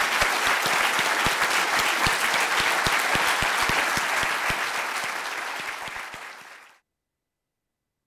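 Auditorium audience applauding, many people clapping steadily, tapering off and cutting off abruptly a little before the end.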